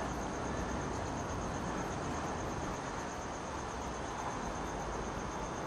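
Crickets trilling steadily at night, a thin, constant high chirring over a steady background hiss.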